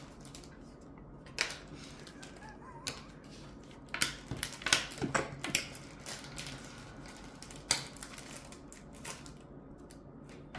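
Scattered light clicks and taps of small metal pogs and magnets being handled and set down on a plastic-covered table, with a quick run of clicks about halfway through.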